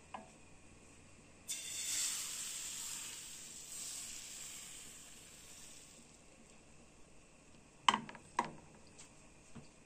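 Thin egg-crepe batter hitting a hot oiled pan: a sudden loud sizzle about one and a half seconds in that slowly dies down over the next few seconds. Near the end come two sharp knocks close together.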